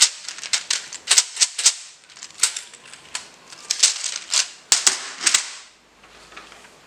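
Plastic parts of a disassembled keyboard clicking and clattering as they are handled: a rapid, irregular run of sharp clicks that dies away about five and a half seconds in.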